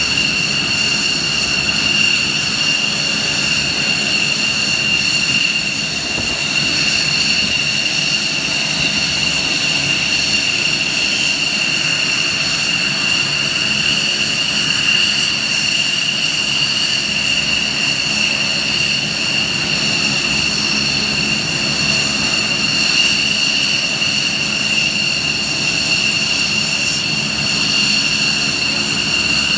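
Aircraft turbine engines running at idle: a steady high-pitched whine with several higher tones above it, over a low rumble.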